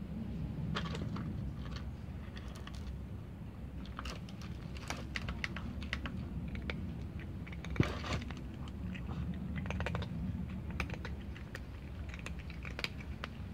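Cats crunching dry dog kibble: irregular crisp clicks and crunches, with one louder knock about eight seconds in.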